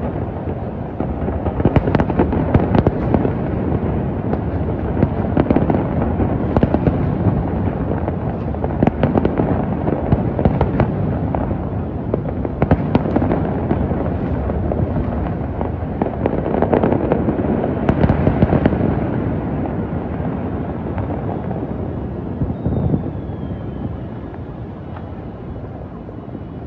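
Aerial fireworks display: a continuous rumble of many overlapping bangs, with sharper cracks standing out every second or so. The barrage dies away over the last few seconds.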